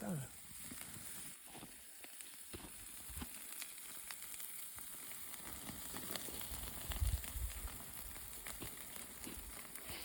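Food sizzling in a pan over an open fire, a steady hiss with scattered small crackles, and a low thud about seven seconds in.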